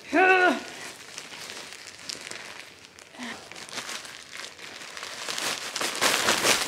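Plastic packaging crinkling and rustling as clothes are pulled out of a parcel, thickening into a denser, louder rustle over the last second or so.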